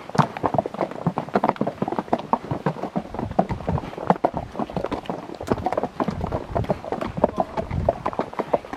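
Horses' hooves clip-clopping at a walk on a dirt and rock trail: a dense, irregular run of hoof strikes from several horses.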